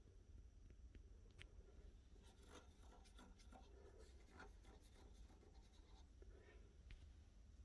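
Near silence: a faint steady low hum, with light scratching and clicking handling noises through the middle.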